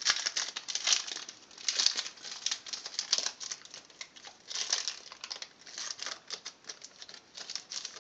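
Foil wrapper of a Yu-Gi-Oh booster pack being torn open by hand, crinkling in irregular crackles.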